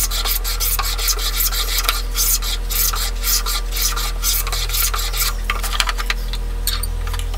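Metal bench plane shaving a maple strip in repeated short strokes. The strokes stop about five seconds in, followed by a few light knocks.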